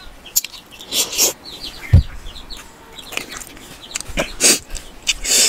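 Close-up eating sounds: biting and chewing fried green chillies, in separate loud smacking bursts about a second in and again near the end. Short bird calls sound in the background in the middle.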